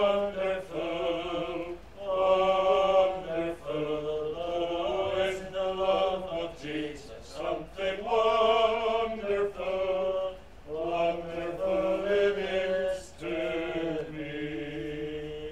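A congregation of voices singing the chorus of a gospel hymn in phrases, ending on one long held note near the end.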